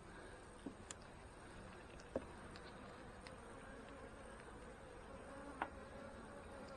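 Honey bees from an opened hive making a faint, steady hum, with a few light knocks, the clearest about two seconds in and again near the end.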